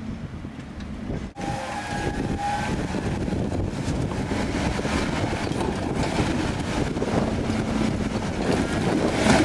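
Jeep engine running as the Jeep crawls slowly over boulders, a steady mechanical rumble with a brief break about a second in.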